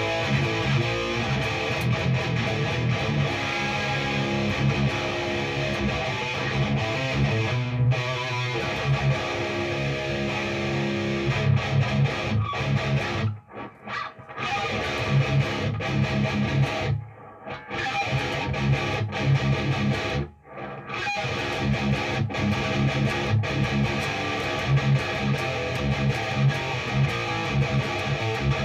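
Distorted electric guitar played through a Peavey 6534+ tube amp head, high-gain metal riffing with a thick, heavy tone. The playing stops dead for a moment three times, about halfway through, and picks straight back up.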